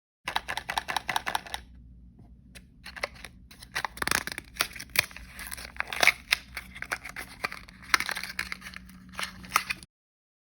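Plastic blind-bag packaging being torn open and crinkled by hand: crackling in spells, with many sharp clicks, loudest about halfway through and again near the end.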